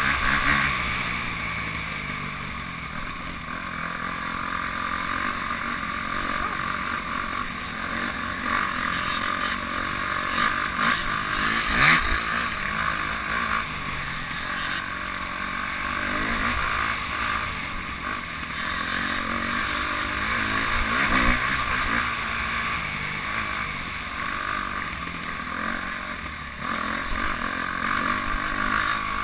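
Dirt bike engine heard up close from the bike itself, revving up and down as the rider works the throttle over a rough trail, with wind and rattle around it. A sharp thump about twelve seconds in.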